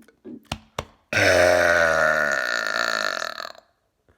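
A man's long, loud burp lasting about two and a half seconds, its pitch sinking slowly as it goes. Two short clicks come just before it.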